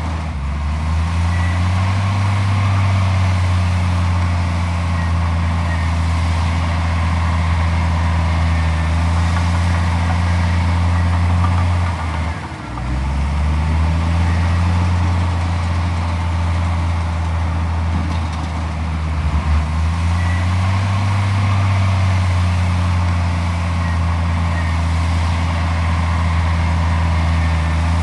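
Komatsu D41P bulldozer's diesel engine working steadily. Its note drops briefly three times and climbs back up in pitch after each drop.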